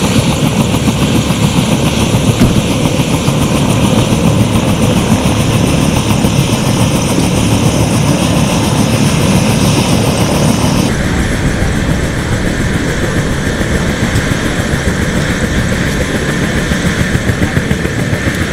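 Helicopter running close by: a loud, steady rotor chop over the turbine.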